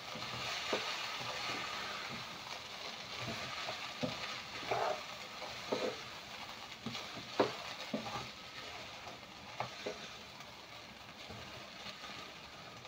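Rice and beef frying in a pot for pilau, sizzling steadily, while a spoon stirs the mix and knocks and scrapes against the pot now and then. The sizzle is a little louder in the first few seconds.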